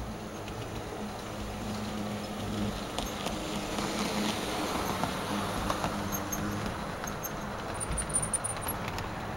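G-scale model train (Aristocraft SD45 with tank-load flatcars) rolling past close by. A steady electric hum sits under the rumble and clicking of its wheels on the track, which grow louder about three to six seconds in as the train passes.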